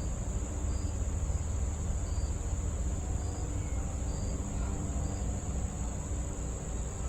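Wind buffeting the microphone in a fluctuating low rumble, over crickets singing a steady high trill, with a short high chirp repeating a little over once a second.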